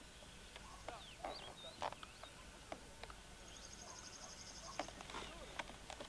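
Faint mixed birdsong from several birds: scattered whistles, upslurred and downslurred chirps and short calls, with a rapid, high, evenly pulsed trill lasting about a second and a half near the middle.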